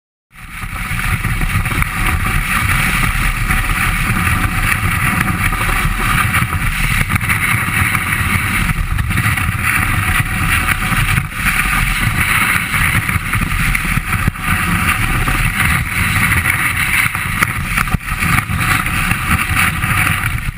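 Steady rushing noise of wind buffeting the camera microphone over the scrape of a snowboard sliding on snow, starting abruptly and cutting off near the end.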